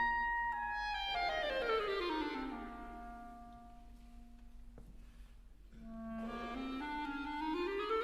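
Solo clarinet playing a cadenza-like passage: a quick stepwise run falling over a couple of seconds to a low held note that fades softer, then a run climbing back up near the end.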